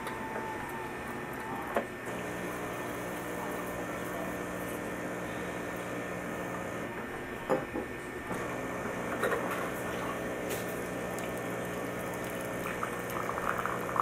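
Krups XP9000 super-automatic espresso machine working through a brew cycle for a 6-ounce coffee. A steady low hum from the machine starts about two seconds in, with a couple of short clicks. Toward the end the sound of coffee streaming into a glass cup comes in.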